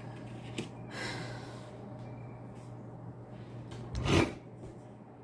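A steady low hum with a faint click and a soft rustle early on, then one loud, short breath about four seconds in.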